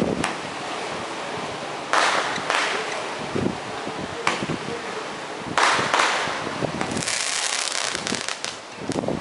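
Consumer fireworks being set off on a beach: about half a dozen sharp bangs, some echoing briefly, then a dense burst of crackling about seven seconds in.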